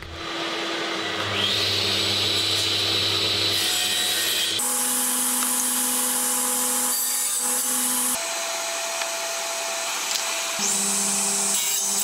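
Table saw running steadily while a wooden broom handle is crosscut on a sled; the hum changes tone abruptly a few times.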